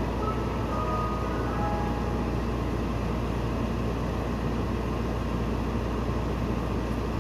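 Mister Softee ice cream truck standing with its engine running, a steady low rumble. A few faint notes of its chime tune come in the first couple of seconds, then the tune pauses.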